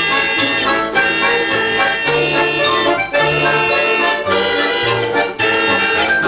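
Russian folk-instrument ensemble playing, with an accordion-type sound to the fore, in a run of held chords that change about once a second.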